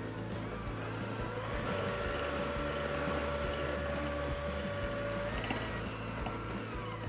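KitchenAid electric hand mixer whirring, its wire beaters churning granulated sugar and molasses in a glass bowl. The motor whine rises in pitch about a second and a half in as it speeds up, holds steady, then winds down near the end.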